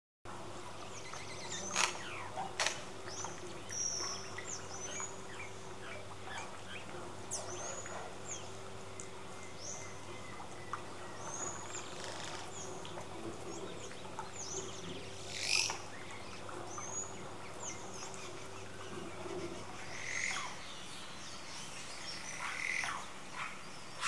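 Wild forest birds calling: scattered short high chirps and quick down-slurred whistles, with a few sharper, louder notes, over a faint steady low hum.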